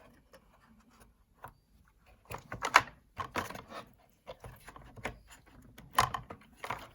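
Irregular light clicks, taps and short scrapes of small parts and connectors being handled inside an opened 2017 21.5-inch iMac during reassembly, busiest around three seconds in and again near the end.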